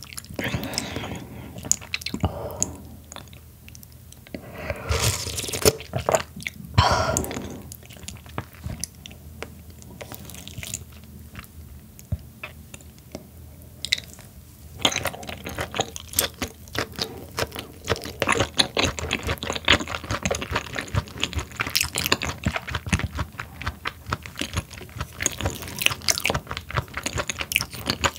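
Close-miked eating: a few louder wet mouth sounds, then from about halfway a dense, continuous run of small crunching clicks as raw sturgeon sashimi is chewed.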